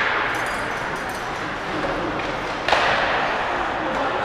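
Ice hockey game play in an arena: a steady scraping hiss of skates on the ice, with a sharp knock of stick or puck about three seconds in, followed by a louder scrape.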